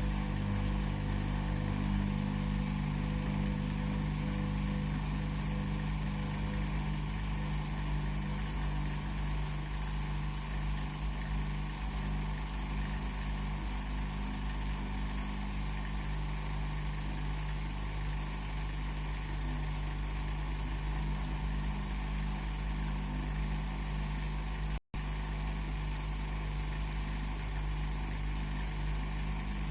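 Washing machine running with a steady low motor hum and the even noise of the turning drum. It cuts out for an instant near the end.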